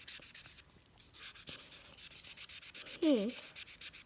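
Felt-tip marker scribbling on the paper of an Imagine Ink colouring book: quick back-and-forth strokes, scratchy and rhythmic, with a short pause about a second in. About three seconds in there is a brief wordless vocal sound that dips and rises in pitch.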